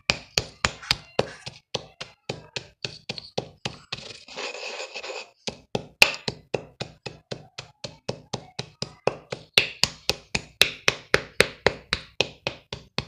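Pieces of chalk crunching and crumbling in a fast, even run of sharp crisp cracks, about three or four a second. A longer grainy crumble breaks the run about four seconds in.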